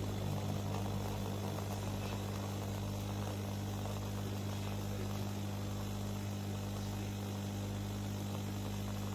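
A steady low hum with a second, higher tone above it over a faint hiss, unchanging throughout.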